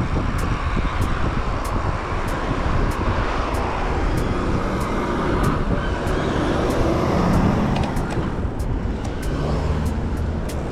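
Road traffic running alongside the bike path, mixed with wind rumble on the handlebar-height camera as the bike moves. A heavy truck's engine hums past about seven seconds in, and faint regular ticks run throughout.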